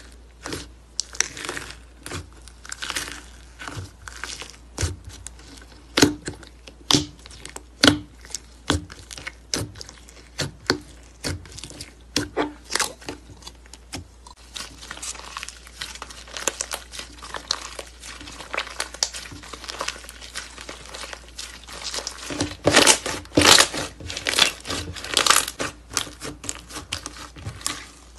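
Thick green slime being poked, pressed and stretched by hand, giving many sharp crackling pops in quick succession. The crackling grows denser through the middle, and the loudest cluster of pops comes near the end.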